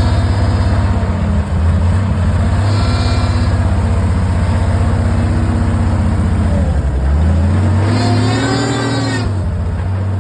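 Engine of sawmill equipment running steadily. Its pitch sags about two-thirds of the way in and comes back up, as if briefly loaded, and a higher whine rises and falls for about a second near the end.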